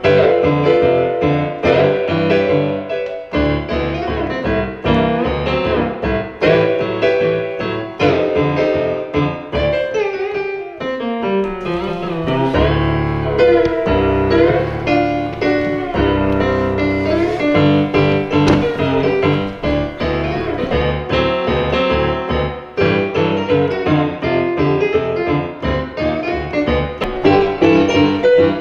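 Piano played solo, a continuous piece of rapid notes with a quick run of falling notes about midway.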